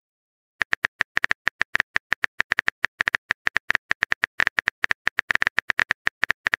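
Simulated phone-keyboard typing clicks from the TextingStory app: a rapid, irregular run of short, sharp key taps, several a second, as a message is typed letter by letter. The clicks start about half a second in.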